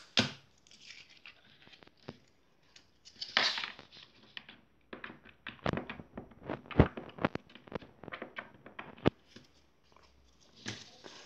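Hands working slime and its small plastic tubs: a scattered run of sharp clicks and pops, thickest in the second half, with a few short rustles.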